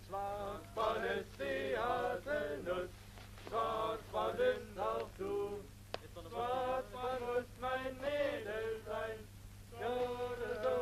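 A man singing unaccompanied, in short phrases with brief breaks and some notes held, the words not made out.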